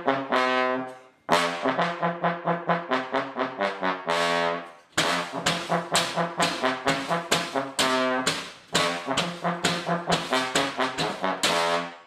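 Trombone playing a run of short, quick notes, about four a second, broken twice by a longer held note that fades away.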